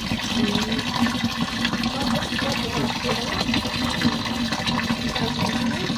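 A jet of water from a hose pouring steadily into the shallow water of a concrete tank, splashing without a break.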